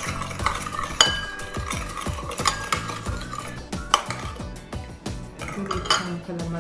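Metal spoon stirring and clinking against a bowl, with repeated sharp clinks that ring briefly, while brown sugar is mixed into a fish sauce and vinegar dipping sauce.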